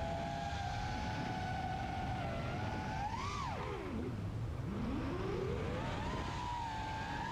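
FPV racing quadcopter's brushless motors and 5-inch propellers whining, the pitch held steady, then surging a little higher about three seconds in, dropping sharply to a low pitch just before four seconds in and climbing back up over the next two seconds as the throttle changes. A low rushing noise runs underneath.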